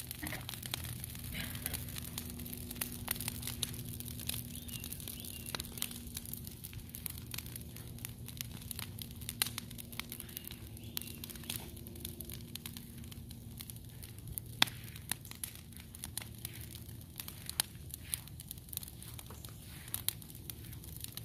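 A brush pile of green, leafy branches burning, crackling and popping with irregular sharp snaps, one louder pop about two-thirds of the way in. A faint steady low hum runs underneath.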